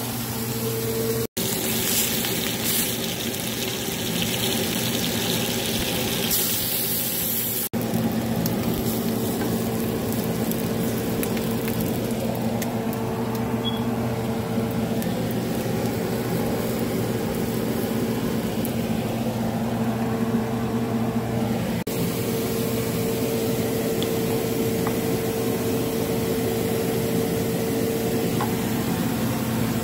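A steady low electrical hum with a hiss over it. The sound drops out for an instant about a second in and again near eight seconds.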